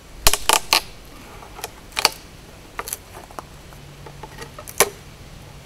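Sharp clicks and knocks as the wooden top of a bee package is pried loose by hand: a quick run of three near the start, then scattered single knocks. A low steady hum comes in past the middle.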